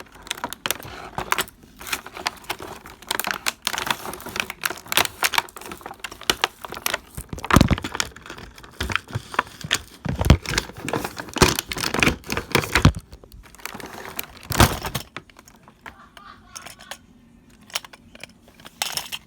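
Plastic toy playset pieces and their packaging being handled: a busy run of clicks, rattles and crinkles with several louder knocks, thinning out in the last few seconds.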